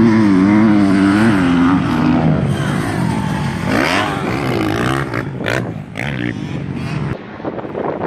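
Motocross dirt bike engine being worked on the throttle as it rides the track and takes a jump, its pitch wavering and swinging up and down around the middle. It drops away about seven seconds in, with wind buffeting the microphone throughout.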